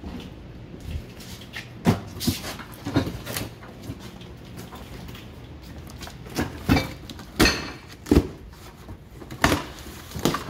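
A cardboard box being handled, set down and pulled open: several sharp knocks and thuds with scraping cardboard rustles between them.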